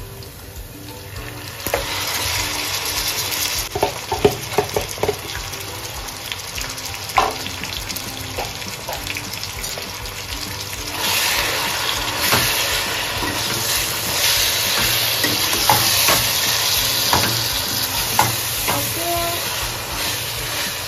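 Marinated mutton sizzling in hot oil with fried onions in a kadhai, starting about two seconds in as it is tipped from the bowl, with a few knocks as the bowl is emptied. About eleven seconds in the sizzle grows louder as the meat is stirred with a ladle.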